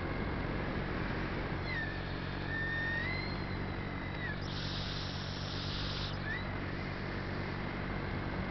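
Aircraft motor running steadily in flight, with wind rushing over the camera; a high whine dips and rises again twice as the throttle changes, and a short hiss comes in the middle.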